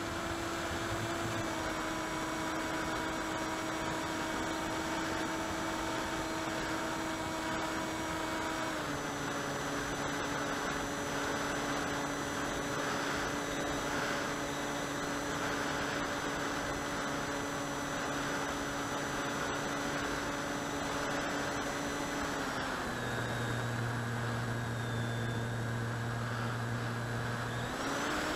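Electric motor and propeller of an AXN foam RC plane, heard through its onboard camera in the airstream: a steady motor whine over wind rush. The pitch drops in small steps about a second in, around nine seconds and a few seconds before the end, then climbs again at the very end, following the throttle.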